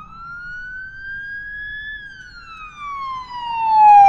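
An emergency-vehicle siren wailing: one slow rise in pitch for about two seconds, then a slow fall, growing louder toward the end before it starts rising again.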